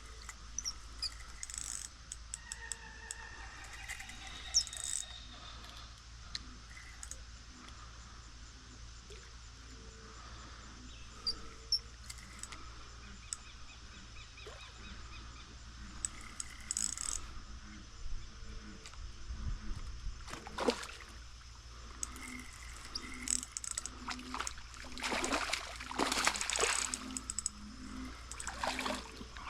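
Fishing reel and drag clicking while a hooked common carp pulls line, then the carp splashing and thrashing at the surface in repeated bursts through the last several seconds. Birds call faintly in the first few seconds.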